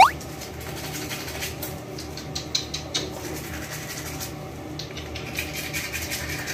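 Toothbrush scrubbing a small dog's teeth: soft scratchy brushing with scattered clicks, over a steady low hum. A short, loud squeak sweeping upward in pitch at the very start.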